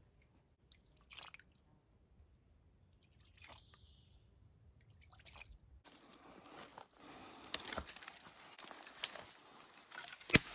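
After a quiet stretch with a few faint small sounds, footsteps crunching through leaf litter and undergrowth start about six seconds in, with branches brushing past and twigs cracking, one sharp crack near the end.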